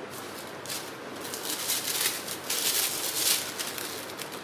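Plastic rustling and scraping as a tall clear plastic cylinder is handled, in quick irregular scratchy strokes that start about a second in.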